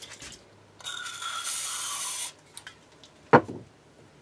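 Threading die cutting a 5 mm thread on a steel pin as the lathe mandrel is turned by hand: a rasping metal-on-metal scrape of about a second and a half, then a single sharp knock.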